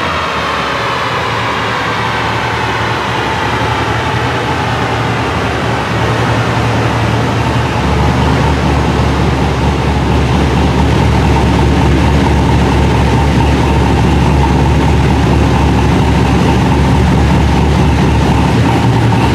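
Chevrolet Silverado's 5.3 L V8 with a Brian Tooley Racing Stage 4 truck cam and a Flowmaster 40 series muffler, winding down after a pull on a chassis dyno: a falling whine as the engine and rollers slow over the first few seconds. From about eight seconds in it settles into a steady, louder idle.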